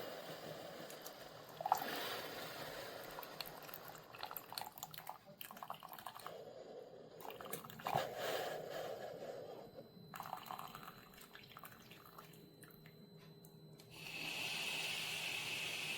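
Water trickling and dripping, with a sharp knock about two seconds in and another about eight seconds in. A louder steady hiss of water comes in near the end.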